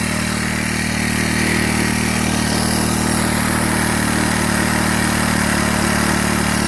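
Small four-stroke Troy-Bilt TB516 EC string trimmer engine running steadily at a fast idle. It has just caught on the pull after a new carburetor, primer bulb and fuel lines, having previously refused to start.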